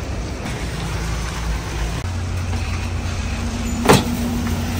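A motor running with a steady low hum that shifts up in pitch about two seconds in, with a single sharp knock near the end.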